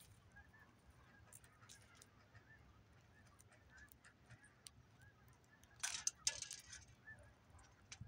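Faint, repeated short bird calls, with scattered small ticks of birds pecking at seed on a feeder tray and a brief louder flurry about six seconds in.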